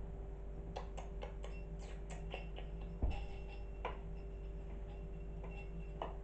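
Kitten playing with a plastic toy dangled on a ribbon: a quick run of light clicks and ticks, a dull thump about three seconds in, then a few more clicks, over a steady low hum.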